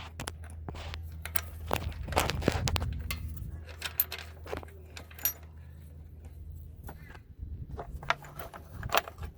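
Irregular metallic clicks, clinks and scraping of hand tools and parts being worked on metal as the mower's blade engagement cable adjustment bracket is loosened, over a steady low hum.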